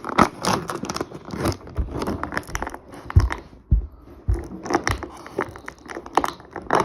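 Toy packaging being handled and pulled apart to free an action figure: irregular crinkling, rustling and tearing, with a few low thumps about three to four seconds in.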